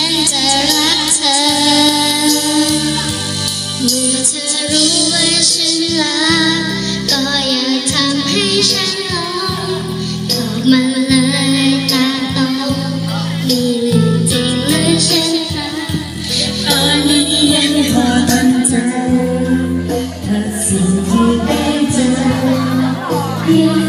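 A woman and a young girl singing a Thai pop song into microphones over a karaoke backing track, amplified through a PA loudspeaker.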